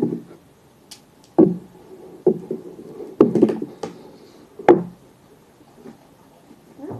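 A handful of separate sharp knocks and thumps, irregularly spaced, with faint rustling between them.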